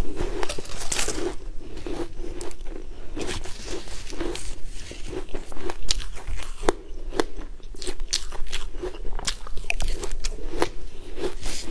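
Close-up eating sounds of a person chewing a mouthful of crunchy black granules: a steady chewing rhythm with sharp crunches scattered through.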